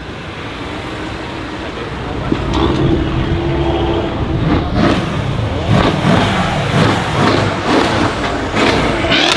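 Mercedes CLS63 S AMG's twin-turbo V8 with a decat exhaust running, then revved repeatedly from about five seconds in, its pitch rising and falling with each blip.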